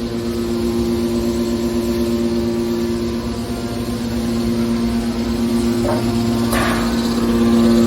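Hydraulic scrap metal baler running: a steady, even hum from its motor and hydraulic pump, with two brief sharper noises about six seconds in.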